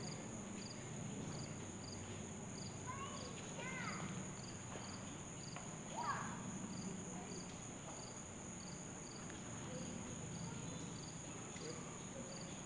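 Insect chorus: a steady high-pitched buzz with a regular chirp repeating about twice a second. A few brief faint calls rise and fall near the middle.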